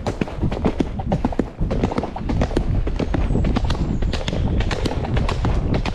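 Horse's hooves striking a leaf-covered woodland track at a brisk gait, a quick irregular run of knocks, several a second, over a steady low rumble.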